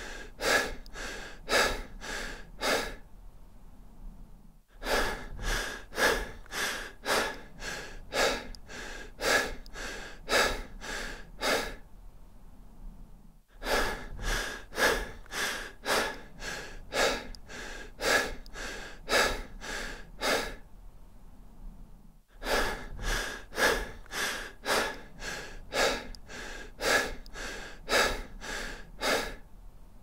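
A person breathing deep and fast, quick breaths about two a second. They come in runs of about seven seconds, each broken by a pause of a couple of seconds.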